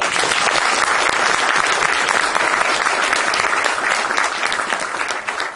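Audience applauding: many hands clapping together, starting all at once and beginning to fade near the end.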